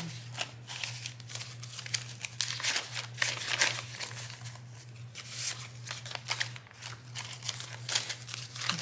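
Paper banknotes being handled by hand: counted, shuffled and slipped into a clear plastic binder pouch, giving an irregular run of crisp rustles and crinkles.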